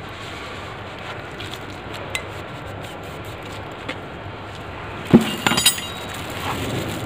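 Metal parts and tools clinking against each other: a few faint handling clicks, then a quick cluster of sharp, ringing clinks about five seconds in.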